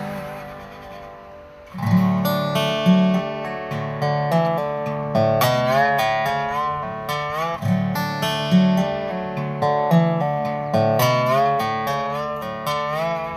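Dobro (resonator guitar) played with a slide: a plucked melody with notes sliding up into pitch over low bass notes. A held chord dies away for the first couple of seconds before the playing starts again.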